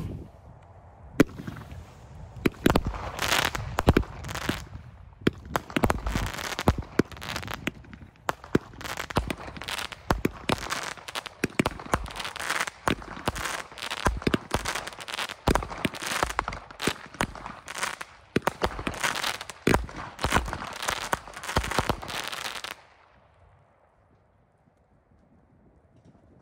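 A 16-shot, 200-gram daytime gender-reveal smoke cake firing a rapid, irregular string of sharp shots, with crackling from the smoke tails. The firing stops suddenly about 23 seconds in.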